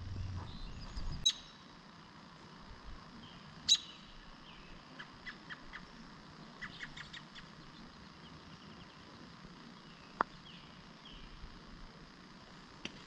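Quiet open-air ambience with scattered small bird chirps and two sharp clicks with a brief high ring in the first four seconds. About ten seconds in comes a single short ringing tick: a putter striking a golf ball.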